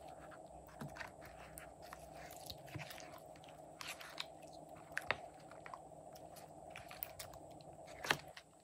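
Fluffy slime being stirred and folded with a plastic spatula in a plastic tub: sticky, wet squelching with many small clicks and pops, the sharpest pop near the end.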